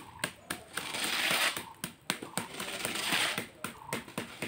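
A hand trowel or float scraping across freshly poured wet concrete on a roof slab in two long strokes, with light taps and clicks in between.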